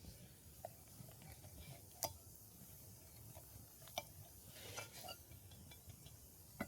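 A few sparse, sharp clicks and ticks over a faint low rumble, the loudest about two seconds in and another near four seconds.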